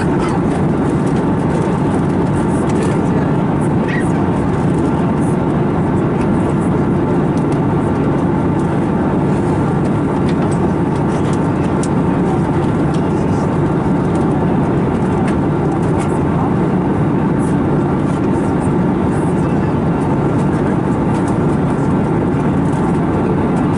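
Steady cabin noise inside an Airbus A321neo in flight: a constant low rush of airflow and drone from its CFM LEAP-1A engines, with no change in level.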